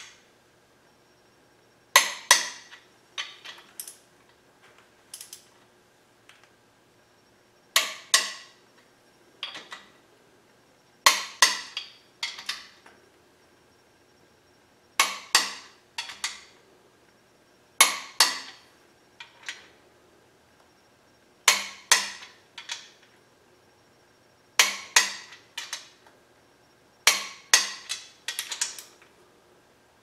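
Click-type torque wrench pulling up the main bearing cap bolts of a small-block Chevy 350 to 65 ft-lb: short bursts of sharp ratchet clicks every few seconds, each ending as the wrench clicks over at its set torque.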